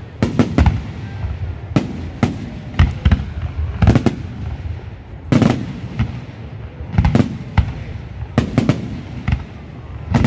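Aerial firework shells bursting overhead in a fast, irregular run of sharp bangs, several of them in quick pairs and clusters, with a low rumble carrying on between them.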